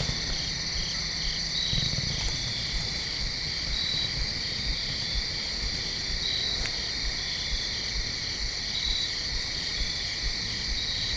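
Steady evening chorus of crickets and other insects: a continuous high-pitched trilling with a regular pulsing beat in it.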